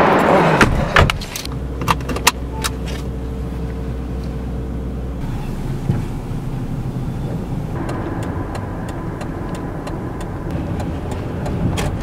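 Sounds inside a car getting under way: a loud thud and rustle as the door is shut, a few sharp clicks with keys jangling, then the car's steady low hum. A run of light, evenly spaced ticks comes in the second half.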